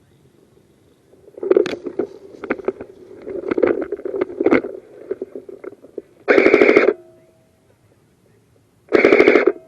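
Irregular clicking and clattering for a few seconds, then two short full-auto bursts from an airsoft gun, each lasting about half a second and about two and a half seconds apart.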